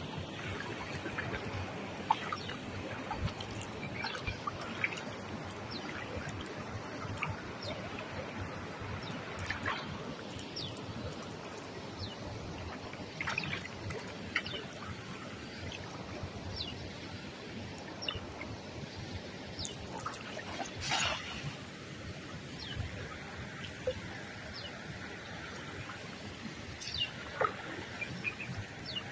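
Shallow river water splashing and trickling around wading legs and a dripping cast net, with short bird chirps scattered throughout. There is one louder, longer burst about three-quarters of the way through.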